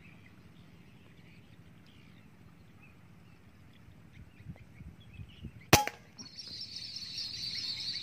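A single sharp air rifle shot a little before the end, with a short ring after it, followed by about two seconds of a dense high hiss.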